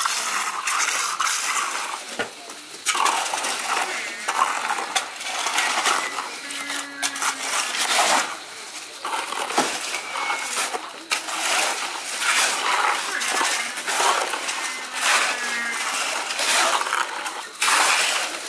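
Shovels and other metal hand tools scraping and clinking through wet concrete and gravel in rapid, irregular strokes, as concrete is mixed and placed by hand for a foundation tie beam.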